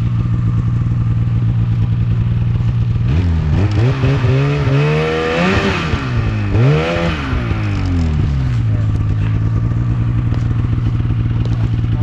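Snowmobile engine idling, then revved up twice over a few seconds, pitch climbing and falling each time, as the rider tries to get moving. It then settles back to idle.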